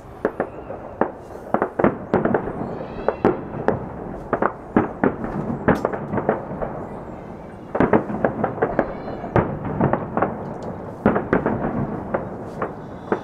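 Fireworks display: a rapid string of shell bursts and crackling pops, thinning briefly around the middle before a dense flurry of bangs.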